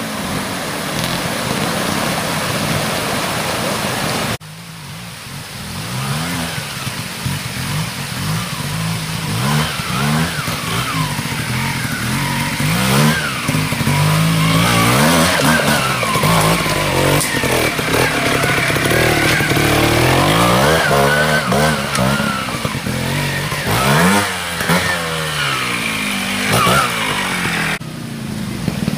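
Trials motorcycle engines revving up and down in short bursts as the riders climb over rocks. For about the first four seconds, rushing water from a stream and small waterfall is heard along with the engine.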